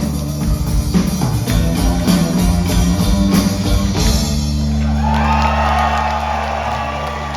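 Live rock band with orchestra playing the last bars of a song, drums hitting until about four seconds in, then a held closing chord ringing on. The audience starts cheering and whooping over it near the end.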